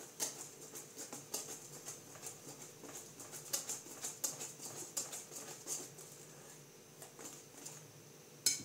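Cake batter being mixed by hand in a glass bowl: soft, irregular wet pats and squishes. Near the end a spatula starts beating the batter against the bowl in quick, regular, louder strokes.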